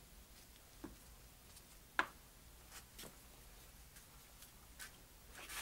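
A few faint, separate clicks and taps, the sharpest about two seconds in: small carburetor parts and screws being handled during a rebuild.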